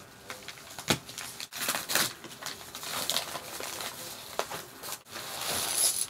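Padded mailing envelope crinkling and rustling as it is handled and pulled open, with irregular sharp crackles.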